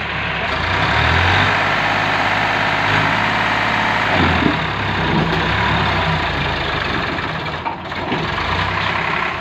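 Farmtrac 45 tractor's three-cylinder diesel engine running hard under load as it tries to drag a loaded trolley out of deep mud, its engine speed changing a few times.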